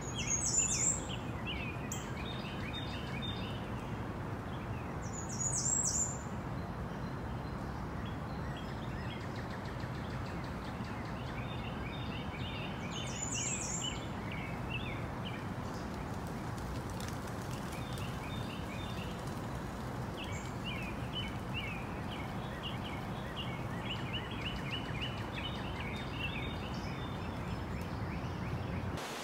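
Outdoor park ambience: small birds chirping and twittering over a steady low background hum, with three louder, higher calls standing out, about a second in, near six seconds and around thirteen seconds.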